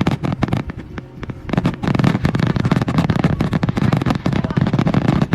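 Fireworks going off in a rapid string of bangs and crackles. The bangs come far thicker and closer together from about a second and a half in.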